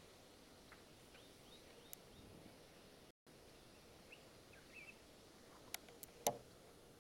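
Quiet riverside bush ambience: a steady low hiss with a few faint bird chirps and several sharp clicks, the loudest just after six seconds in. The sound cuts out for an instant about three seconds in.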